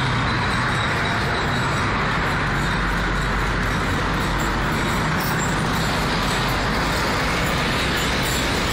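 Steady road traffic noise: a continuous even rush with a low rumble underneath, unchanging throughout.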